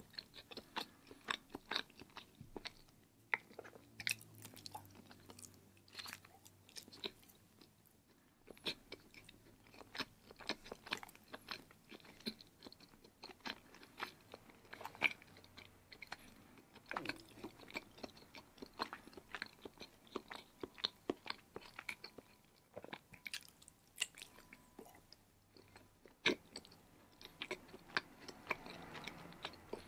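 Close-miked chewing of firm block cheese: wet mouth sounds with an irregular patter of sharp clicks and smacks.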